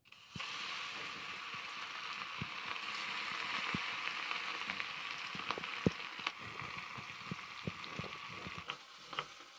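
Turmeric-coated fish pieces sizzling in hot oil in a kadai, the sizzle starting suddenly as they go into the oil, with scattered pops and spits. The sizzle eases a little near the end.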